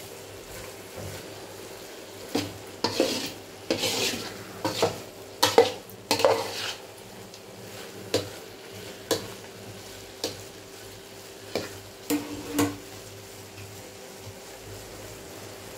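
Flat metal spatula scraping and knocking against a large metal kadai as thick grated-carrot halwa is stirred, over a low sizzle of the cooking mixture. The strokes start about two seconds in, come irregularly for about ten seconds, then stop near the end.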